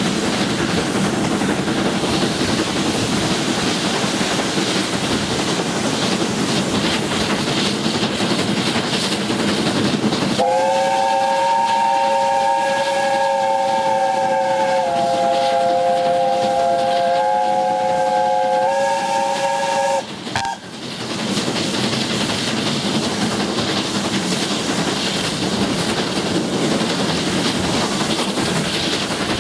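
Chime whistle of the S160 steam locomotive No. 2251, heard from a carriage behind it: one long chord blast of about ten seconds, starting about a third of the way in, its pitch stepping slightly twice before it cuts off suddenly. Before and after the whistle there is the steady running noise of the train.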